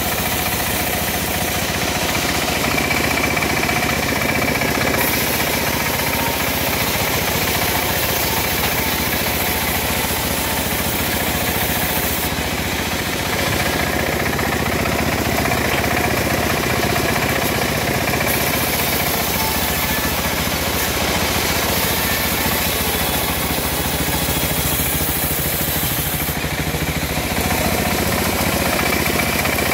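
Homemade band sawmill running continuously, its drive and bandsaw blade ripping teak boards. The high hiss of the saw shifts several times as boards are cut.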